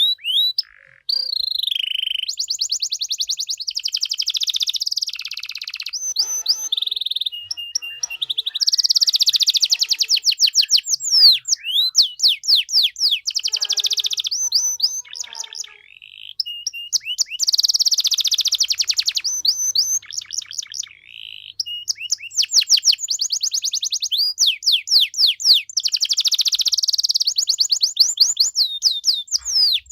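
Domestic canary singing a long, continuous song of fast trills and rolls, rapid runs of repeated high notes with gliding phrases between them, broken only by brief pauses about halfway through and again a few seconds later.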